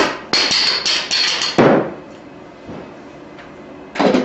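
Rubber mallet blows knocking an old gas cylinder out of a Steelcase Leap office chair base. A quick run of about eight blows comes in the first second and a half, with a thin metallic ring, then one more blow near the end.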